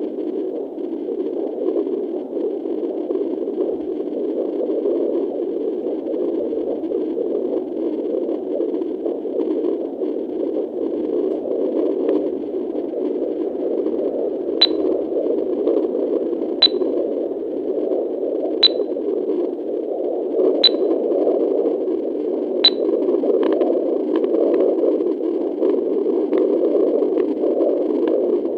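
Fetal heartbeat at 10 weeks 4 days heard through a Doppler: a steady whooshing pulse-like noise. From about halfway, sharp high clicks come about every two seconds.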